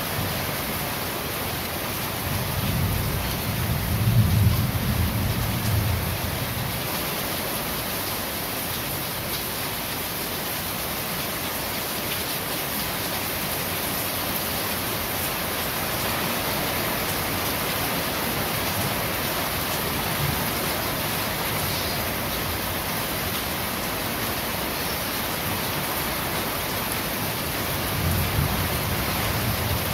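Steady rain falling on corrugated roofing, an even hiss. A low rumble of thunder swells from about two seconds in, peaks around four seconds, fades by six, and comes back briefly near the end.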